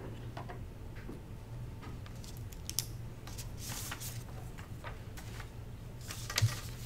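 Sheets of paper rustling and small clicks and taps of desk handling over a steady low hum, with a sharper knock about six seconds in.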